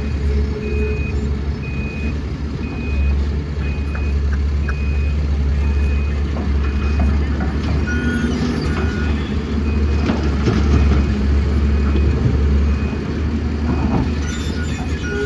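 Heavy diesel machinery running steadily at a loading site, with a backup alarm beeping at a regular pace throughout; a second, lower-pitched alarm beeps briefly near the end.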